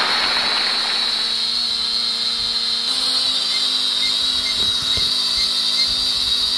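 Small toy quadcopter drone's motors and propellers running at a steady high whine while held in the hand, pulling upward against it. The pitch steps up about three seconds in as the throttle is raised.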